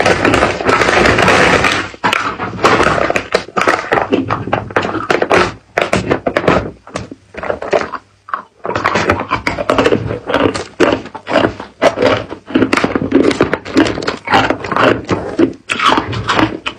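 Clear ice cubes clinking and knocking against each other inside a plastic bag as they are handled, a fast run of sharp clicks and thunks. There is dense plastic crinkling for the first two seconds.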